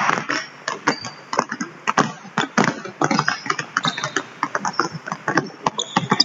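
Several basketballs dribbled at once on a hardwood gym floor, an irregular run of many quick bounces, several a second.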